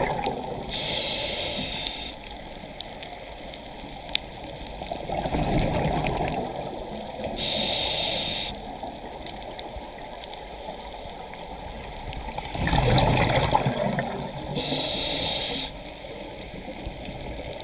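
Scuba diver breathing on a regulator underwater, three slow breaths: each is a short hiss of inhalation, then a bubbling, gurgling rush of exhaled air a few seconds later.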